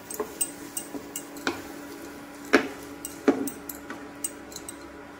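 Wooden spatula stirring green peas in masala in a non-stick frying pan, scraping with scattered clicks and knocks against the pan. The two loudest knocks come about halfway through, under a faint steady hum.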